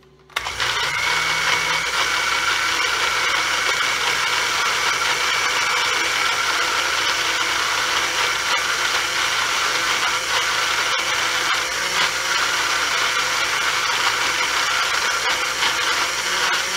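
Countertop blender switched on just after the start and running steadily, pureeing a salad dressing of olive oil, balsamic vinegar, sun-dried tomatoes, garlic and tomato paste.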